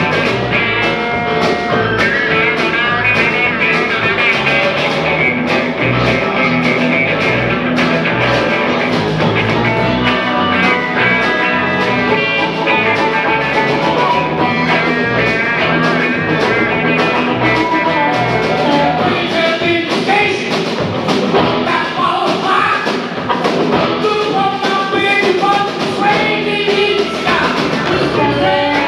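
Live blues-rock band, with electric guitars, piano and drums, playing a driving shuffle, while a harmonica played into the vocal microphone solos over it.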